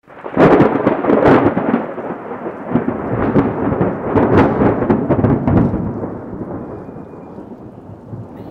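Thunder: several loud crackling cracks with rumbling in between. The cracks are loudest in the first two seconds and again around four to five seconds in, and the rumble fades away over the last few seconds.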